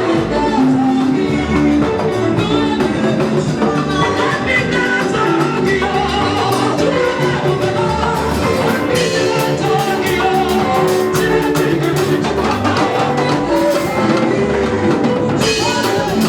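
Live gospel worship music: a band with drum kit and other instruments playing a steady beat, with singing.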